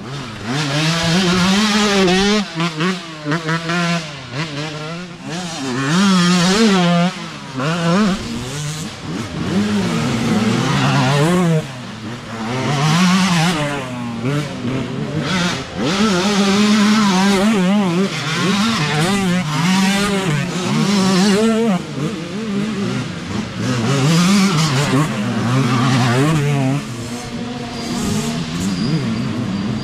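Dirt bike engine heard close up from the rider's own bike, revving up and easing off over and over, its pitch rising and falling with each twist of the throttle and gear change.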